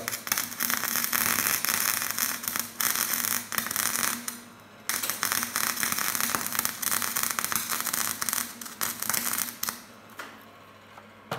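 Welding arc of an old Elektra Beckum MIG welder running self-shielded flux-cored wire without shielding gas, crackling and spattering in two runs with a short break about four seconds in, and stopping near the end. The wire feed is still set too high, feeding too much wire.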